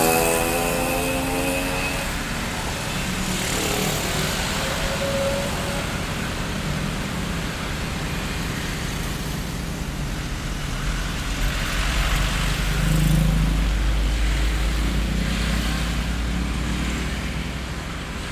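Street traffic: a steady wash of passing vehicles. At the start one vehicle's engine note slides down in pitch as it goes by, and from about two-thirds of the way through a deep engine rumble swells, loudest a little past the middle of that stretch, then eases off.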